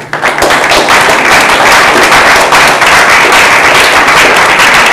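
Audience applause: many people clapping at once, breaking out suddenly and staying loud and dense.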